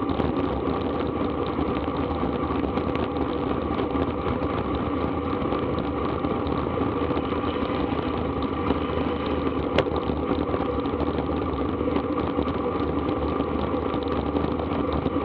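Steady wind and road rush on a bicycle-mounted action camera's microphone during a sprint at about 30 mph, with a steady hum from the tyres on asphalt. A single sharp click about ten seconds in.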